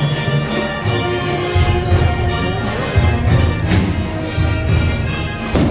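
Live band music with a steady bass beat, and two cymbal crashes: one a little past halfway and one near the end.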